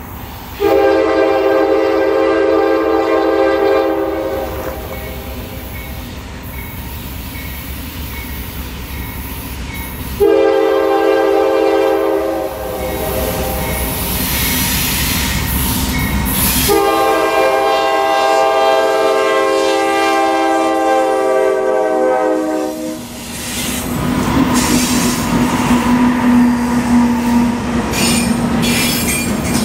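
Diesel freight locomotive's multi-chime air horn sounding three blasts, the last the longest, followed by the rumble of the train passing.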